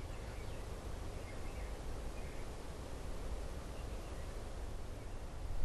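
Steady, quiet outdoor background noise with a low rumble, and a few faint bird chirps in the first half.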